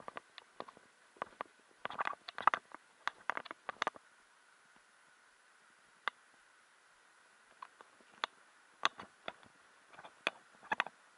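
Faint, irregular crackling and clicking of footsteps on a dry, leaf-covered path and rocks, over a faint steady hiss. The crackles come in a thicker cluster about two seconds in and again near the end.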